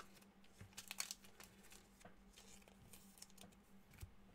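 Faint crinkles and clicks of trading cards and foil card packs being handled, over a low steady hum.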